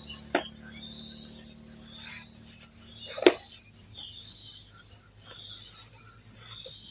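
A small bird calling over and over, a short high chirp about once a second. Two sharp clicks of handling noise cut through, the louder one about three seconds in.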